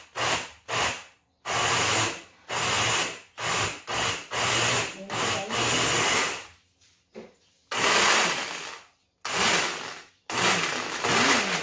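Countertop electric blender grinding overnight-soaked rice with coconut milk into batter. It runs in repeated pulses, about a dozen short runs of under a second to a second and a half each, with the motor stopping briefly between them.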